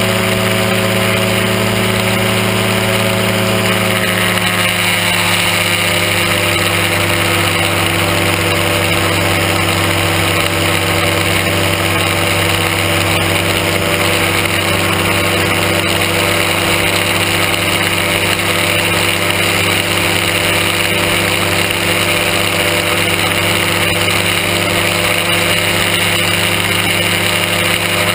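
Aerochute powered-parachute microlight's engine and propeller running steadily in cruise flight, heard from the pilot's seat over a constant hiss of rushing air. The revs ease down slightly about four seconds in, then hold steady.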